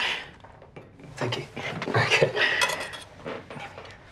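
Plates and cutlery clinking and scraping on a dinner table as food is served, a run of clicks gathered mostly in the middle of the stretch.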